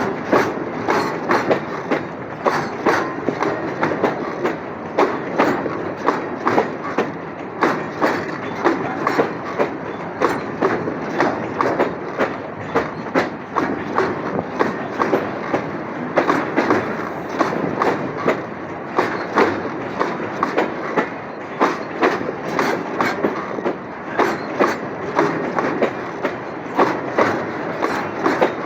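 Wagons of a loaded steel-coil freight train rolling past, their wheels clacking over the rail joints in a steady, repeating clickety-clack.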